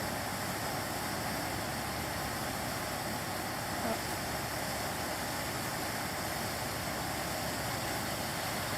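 Water rushing steadily from a break left by a hit-and-run, shooting up about ten feet in a hard, continuous jet.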